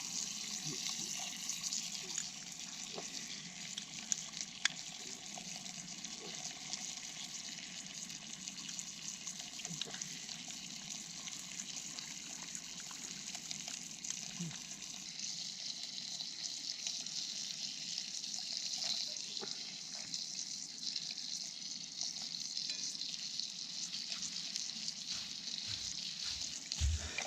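Brook trout fillets sizzling in a frying pan: a steady hiss with scattered small crackles, growing a little louder about halfway through.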